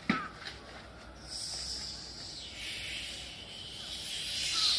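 A lifter's hissing, forced breaths while straining to hold a heavy barbell locked out overhead, growing louder toward the end. A short sharp click sounds just at the start.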